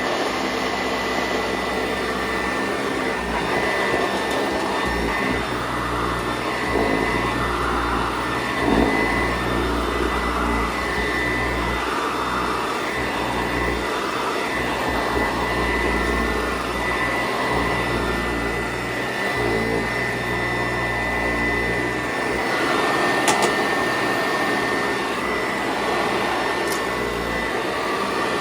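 PowrFlite PF70 commercial vacuum cleaner running steadily with a constant high whine, its belt-driven brush roll turning on a worn belt. The sound swells and eases about every two seconds as it works over carpet.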